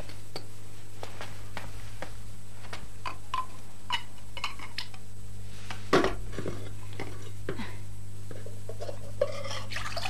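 Light clinks and knocks of dishes and kitchen utensils being handled, with a louder clatter about six seconds in. Near the end a tap is turned on and water runs into the sink. A steady low hum lies under it all.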